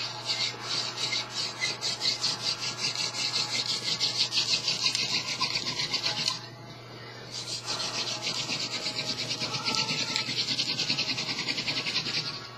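Wooden hand drill spindle spun back and forth between the palms, grinding in the notch of a hearth board to make fire by friction: a rhythmic dry rasp of about four strokes a second, with a pause of about a second midway.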